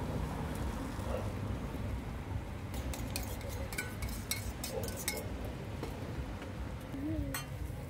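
Metal utensils clinking: a quick run of sharp clinks about three to five seconds in as the fork and cup work on the steel griddle while beaten egg goes onto banana slices, over a steady low rumble.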